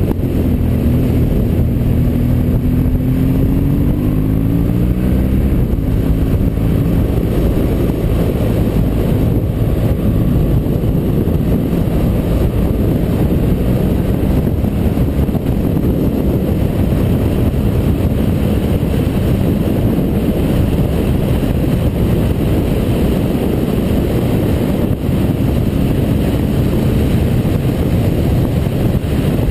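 BMW motorcycle engine accelerating, its pitch rising over the first several seconds, then running steadily at road speed under heavy wind noise on the camera microphone.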